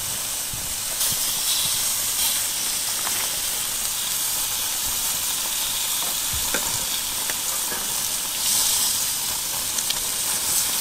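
Pork belly sizzling steadily on a hot grill grate as the browned pieces are turned, with a few light clicks of metal tongs against the meat and grate.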